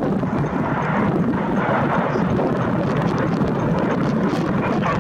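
Steady rumbling noise of jet airliner engines, with wind buffeting the microphone.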